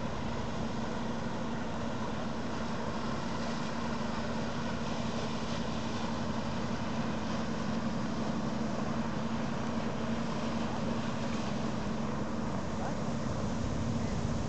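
The excursion ship MS Moby Dick passing on a lake, its engines running with a steady low hum that grows a little louder toward the end as it comes closer.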